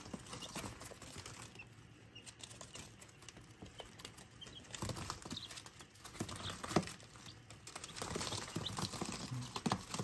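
Baby chicks scurrying on newspaper in a brooder box: light, scattered pattering and paper rustling that grows busier in the last couple of seconds.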